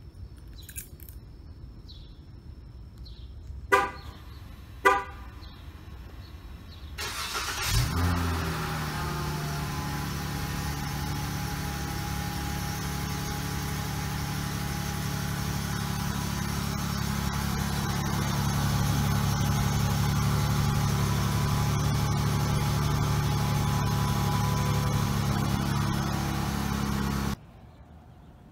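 Two short car-horn chirps, then a 2016 Dodge Charger SXT's 3.6-litre V6 starts on its stock exhaust, flares briefly and settles to a steady idle, which cuts off suddenly near the end.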